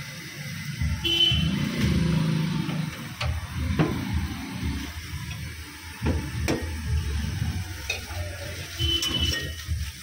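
A dosa cooking on a large iron tawa over gas burners: faint sizzling over a strong low rumble, with a few sharp clicks.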